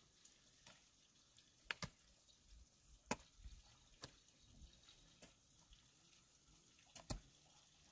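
Near silence broken by a handful of sharp, irregularly spaced taps or knocks, three of them louder than the rest.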